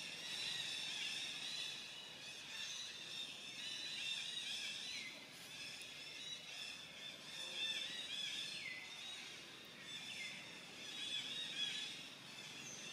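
Outdoor animal chorus of many high chirps and short calls. Several of the calls slide down in pitch, and they recur every second or two.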